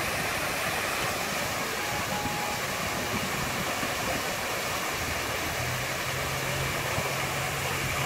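Steady rushing of a waterfall pouring into a pool. A low steady hum joins about halfway through.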